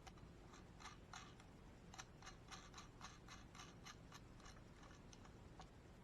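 Faint, irregular light clicks of small hardware being handled: nylon spacers being fitted onto bolts on a bracket, about fifteen ticks spread unevenly.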